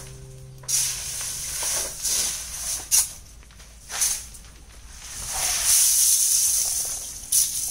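Clam shells tipped by the basketful into a lime kiln onto its coconut-shell fire: a hissing rush each time a load pours in, several times over, the longest near the end.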